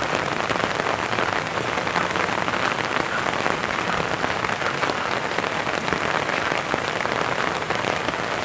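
Steady rain falling, a dense even hiss of many small drop ticks.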